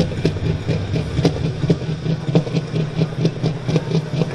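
Super stock pulling tractor's diesel engine idling with a steady, rhythmic beat.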